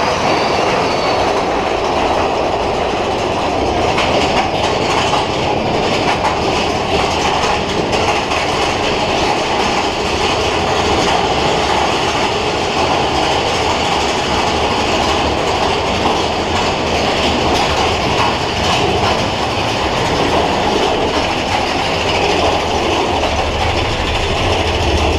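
Big Thunder Mountain Railroad mine-train roller coaster running along its track: a steady, loud noise of the cars and their wheels on the rails.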